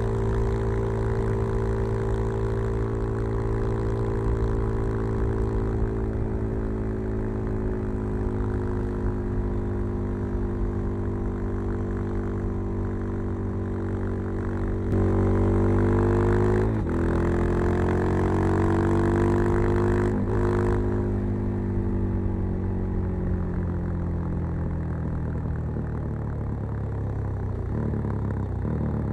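Suzuki DR-Z 400 supermoto's single-cylinder four-stroke engine, fed by a Keihin FCR 39 carburettor and breathing through a LeoVince V3 silencer with its dB-killer fitted, heard on board while riding. At first the revs hold and sag slowly. About halfway through the throttle opens and the engine gets louder, the revs climbing through two quick gear changes. After that it winds down steadily as the bike slows.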